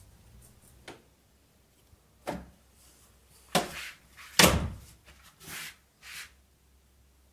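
Door knocks and thuds: about six separate bumps, the loudest about four and a half seconds in.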